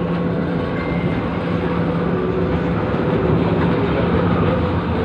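LRT Line 1 light-rail car running, heard from inside: a steady rumble of wheels on the rails with a constant motor hum.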